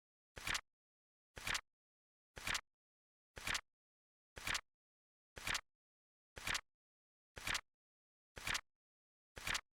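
Flip clock sound effect: a short, sharp flap clack about once a second, ten in all, with dead silence in between, like a split-flap card flipping over.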